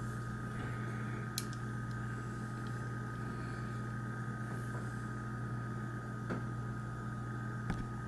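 Steady low electrical or fan-like hum with a faint higher whine, and a few faint, widely spaced clicks as the metal time-lock movement is handled in the hands.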